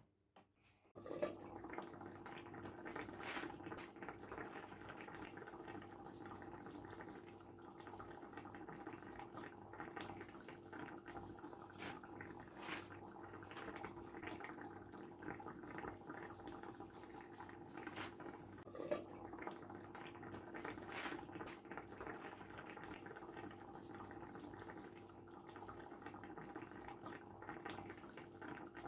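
Water running steadily, starting abruptly about a second in, with scattered small clicks over it.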